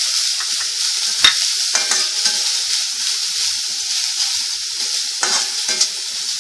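Chopped vegetables and cooked egg sizzling in hot oil in a steel kadhai while a spatula stirs and scrapes through them. A sharp clink of the spatula against the pan comes about a second in, and a few more come a little past five seconds.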